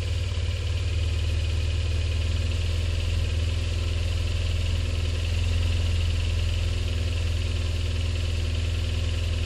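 A vehicle engine idling steadily, with an even low hum.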